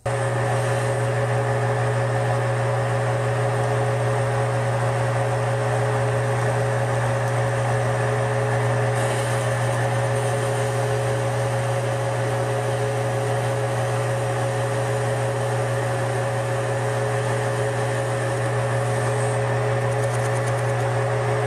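Metal lathe running steadily with a 4-jaw chuck spinning: an even low hum from the motor and drive, with a fainter steady whine above it.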